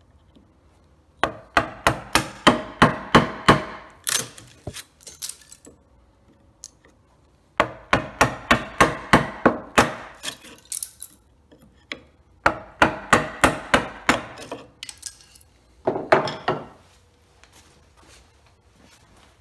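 Wooden mallet striking a bench chisel, chopping waste out of a notch in black walnut. The blows come in quick runs of about four a second, in several bursts with short pauses between them.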